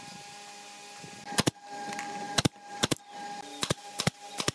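Sharp cracks of carpentry work on a hardwood cabinet frame, each a quick double, about six of them starting a little over a second in, over a steady hum of a few fixed tones.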